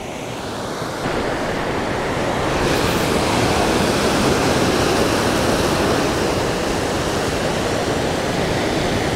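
Ocean surf breaking against the rocks at the foot of a sea cliff: a steady rushing wash that swells over the first few seconds.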